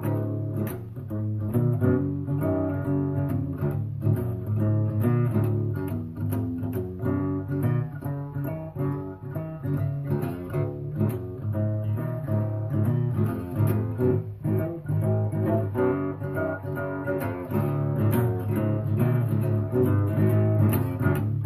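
Background music led by plucked guitar, with a steady bass line underneath.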